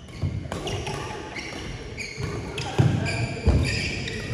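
Badminton rally: shuttlecock struck back and forth with rackets, several sharp knocks about every half second to second, the loudest about three seconds in, with court shoes squeaking and feet stamping on the floor.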